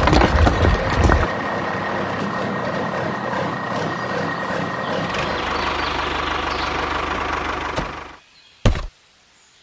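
Small motor of a mini tractor running steadily, with a few knocks in the first second. It cuts off about eight seconds in, followed by a single sharp knock.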